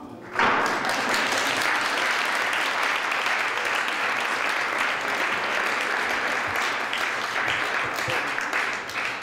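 Sale-room audience applauding, breaking out suddenly about half a second in and holding steady until near the end: applause greeting the hammer price of a lot.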